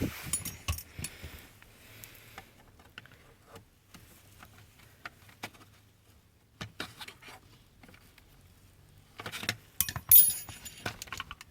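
Intermittent clicks, taps and light rattles of small hard objects being handled, with a denser, louder cluster of clicks near the end.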